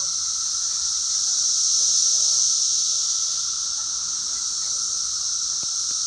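A dense chorus of Brood X periodical cicadas, painfully loud: a shrill, steady drone with a lower steady tone beneath it, swelling slightly about two seconds in.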